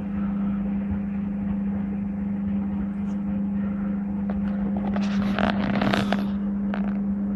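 Servis Gem M310 washing machine running a cottons 95 wash: a steady machine hum, with a short louder rush of noise about five to six seconds in.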